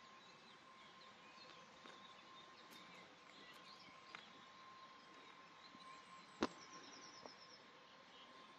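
Near-silent outdoor ambience with faint bird chirps, a faint steady tone, and a single sharp click about six and a half seconds in.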